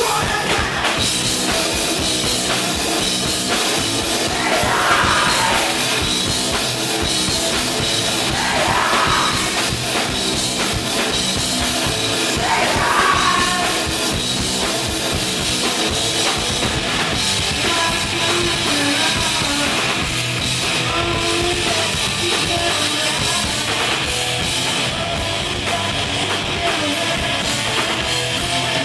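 A rock band playing live and loud: electric guitars and a drum kit with a singer's voice over them.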